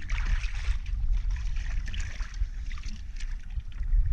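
Water sloshing and splashing close to the microphone, with scattered small crackles over a constant low rumble.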